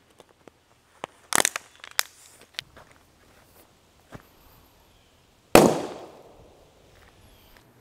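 A plastic water bottle packed with dry ice bursting with one sharp bang about five and a half seconds in, the pressure of the subliming CO2 splitting it. Before that, a few rustles and clicks.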